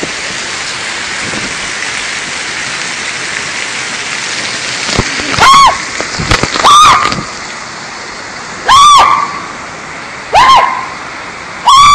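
Heavy rain pouring steadily. From about five seconds in, five loud, high cries break in over it, each rising and then falling in pitch.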